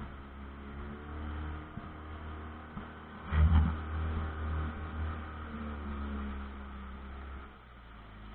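Pontoon boat's motor running steadily, its pitch rising and falling a little, with a single thump about three and a half seconds in.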